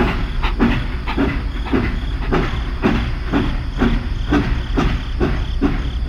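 Toy steam locomotive running on its plastic track, a rhythmic clatter of about two beats a second over a steady low hum.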